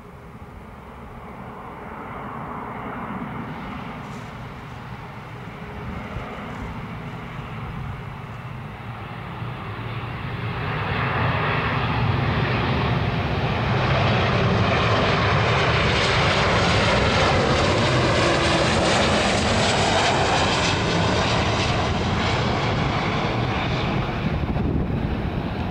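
Boeing 737-800 airliner's CFM56 turbofan engines on a landing pass, growing louder and brighter until about halfway through, then staying loud.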